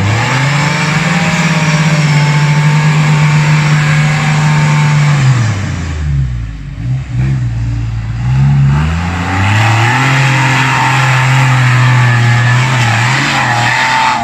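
Suzuki Grand Vitara's V6 engine revving hard as the SUV drives through deep mud. It is held at high revs for about five seconds, drops right off, then revs up again and holds high before easing off near the end.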